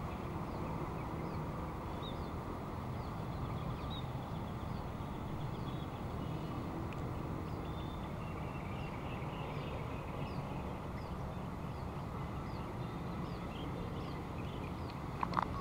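Steady low rumble of distant airliner jet engines at low power, with a small bird giving short high chirps about once a second. A brief sharp sound comes just before the end.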